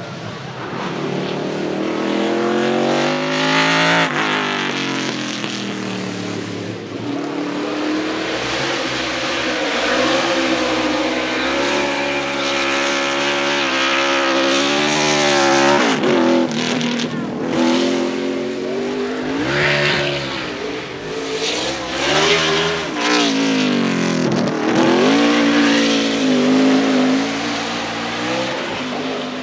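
NASCAR stock cars' V8 engines running hard at full throttle. The engine note repeatedly climbs as they accelerate and falls as they lift or shift, with two sudden drops, one just past halfway and one near the end.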